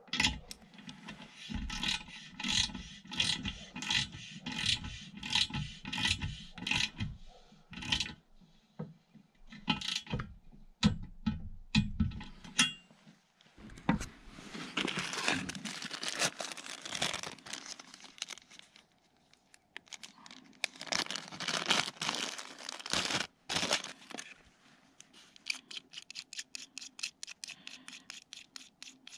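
Torque wrench ratcheting in regular strokes, about two a second, tightening a TPMS sensor's valve-stem nut on an aluminium wheel. It is followed by scattered knocks, two long stretches of scraping and rustling of a cardboard box and packaging, and rapid light clicks near the end.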